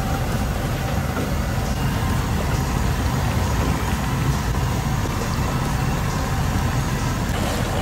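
A steady, loud low rumble with no breaks.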